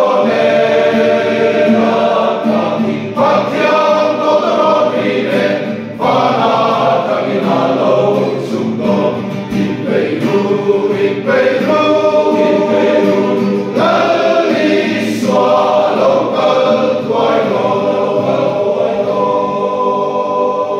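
A large men's choir singing a Christian hymn in Mizo in phrases, with short breaths between lines.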